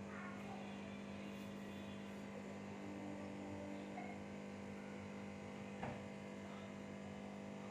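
Steady low electrical hum, with one faint click about six seconds in.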